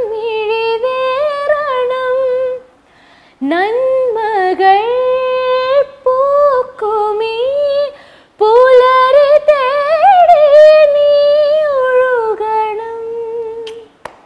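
A woman singing a Malayalam song unaccompanied, in three long phrases with held, wavering notes and two short breaths between them.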